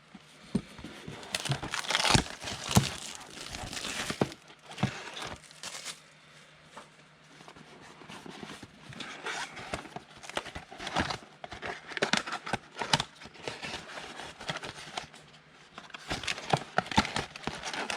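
Trading card pack wrapper being torn open and crinkled, in irregular bursts of crackling with a quieter lull partway through.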